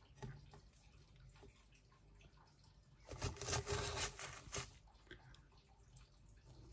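Faint scratching and crunching of gritty potting soil as a wooden stick pokes a hole and a baby's toes succulent piece is pushed in, a cluster of scratches lasting about a second and a half, some three seconds in.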